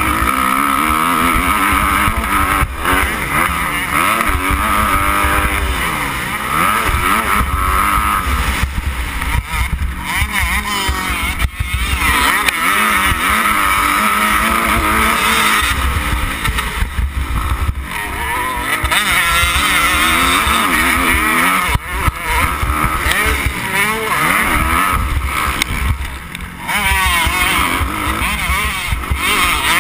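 Motocross dirt bike engine revving hard, its pitch climbing and dropping again and again as the rider throttles and shifts over rough ground. Heavy wind buffets the camera's microphone, with scattered sharp knocks.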